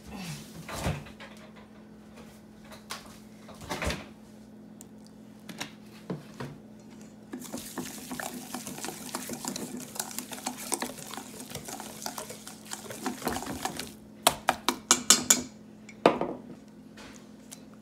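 A wire whisk stirring a thick cornmeal, egg and buttermilk batter in a stainless steel bowl. A few scattered clicks give way, about halfway through, to a fast steady run of metal scraping and clicking against the bowl, followed by a short cluster of sharp metal taps near the end.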